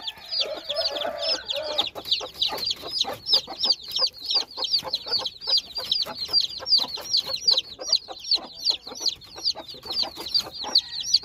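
A brood of newly hatched chicks peeping continuously, many short high-pitched calls a second overlapping, while the mother hen clucks low underneath, most strongly in the first two seconds.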